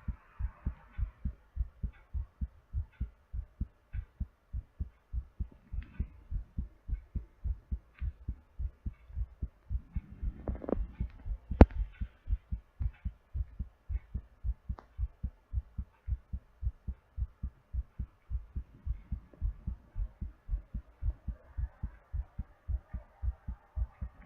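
Human heartbeat picked up at the chest, an even run of low double thumps (lub-dub) recorded during recovery from exercise. Soft breath noise comes in near the start and again toward the end. About halfway through a single sharp click, the loudest sound, cuts through the beats.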